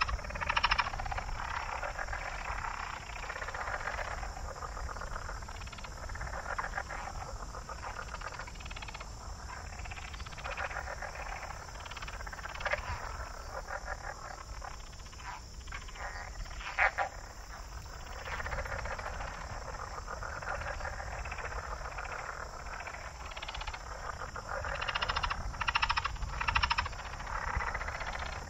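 Swamp ambience: a dense chorus of frogs and insects trilling, swelling and fading every few seconds, with a few louder single calls standing out.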